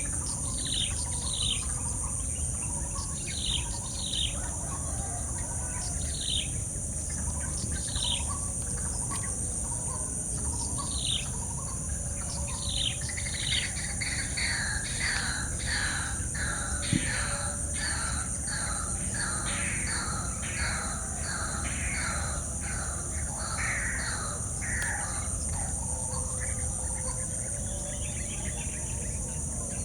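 Wild birds calling in short, falling whistled notes, one every second or two, then a quicker run of falling notes through the middle stretch. Over a steady high-pitched insect drone and a low rumble.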